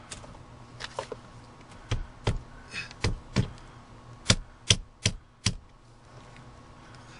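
Hammer blows struck upward against the underside of a floor: a few light taps, then two pairs of sharp blows, then a run of four at about two and a half blows a second.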